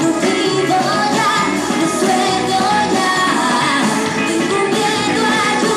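A tropical dance band playing a lambada, with singing over keyboards.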